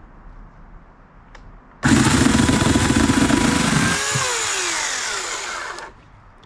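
Small electric chainsaw starting suddenly about two seconds in and cutting through a branch for about four seconds. Its whine sinks in pitch during the second half, and it stops abruptly near the end.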